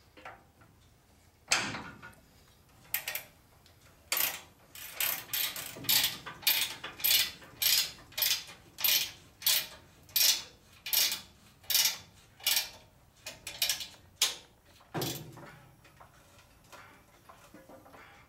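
Hand tool working on the steel suspension parts: a steady run of about fifteen sharp metallic clanks, roughly two a second, from about four to thirteen seconds in. A few scattered knocks come before the run and one more near the end.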